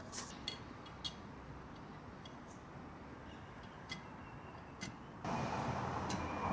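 A few light, scattered clicks and taps of metal engine parts being handled and set in place. About five seconds in, a steady hiss of background noise comes up and holds, with a faint high tone.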